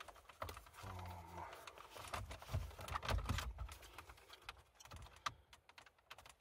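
Plastic dashboard trim and its clips on a 2010 Opel Insignia clicking and rattling as hands pull and work at them to release the panel, in a quick irregular series of small clicks.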